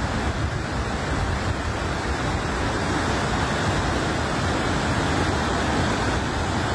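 Floodwater of a swollen river rushing over rapids: a steady, unbroken noise of churning whitewater.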